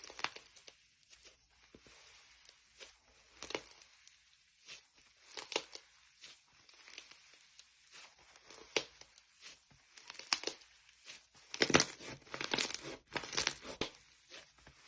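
Slime being worked by hand: irregular crackling, popping strokes, coming thicker and louder for a couple of seconds near the end.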